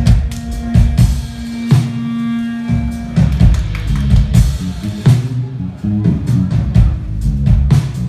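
Jazz-fusion band playing live through a hall's PA: drum kit hits over bass and keyboards, a held low note giving way to a moving bass line about three seconds in.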